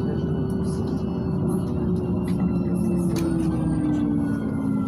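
Cabin noise of a LiAZ 5292.67 city bus under way on compressed natural gas, its YaMZ-53624 engine and tyres giving a steady low rumble. A whine over it falls slowly in pitch through the second half.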